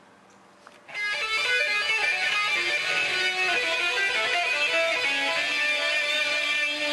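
Electric guitar playing a line of changing notes, starting about a second in after a short quiet gap.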